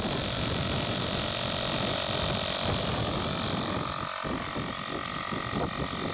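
Wind buffeting the microphone in gusts, over a faint steady mechanical hum.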